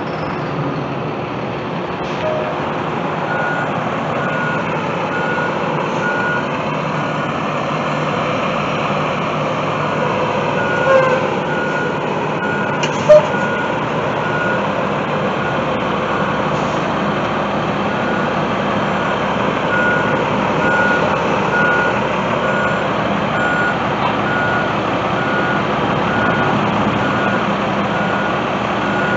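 School bus engine running as the bus pulls out past the camera, with a vehicle's backup alarm beeping steadily about once a second. The beeping starts a few seconds in. A single sharp knock comes about halfway through.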